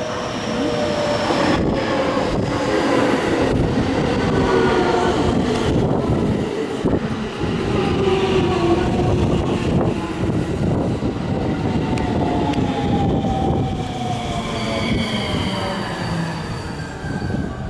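Electric train running on the rails, its motor whine gliding slowly down in pitch over several seconds as it slows, with rumbling wheel noise and occasional clicks from the rail joints. A higher whine comes in and rises near the end.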